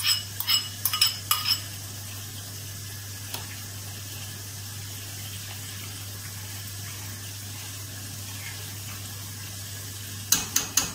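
A metal spoon clinks quickly against a bowl for about a second and a half as beet borscht dressing is scraped into a pot of hot broth. Then there is only a steady low hiss, until near the end the spoon clinks several times against the stainless steel stockpot as the borscht is stirred.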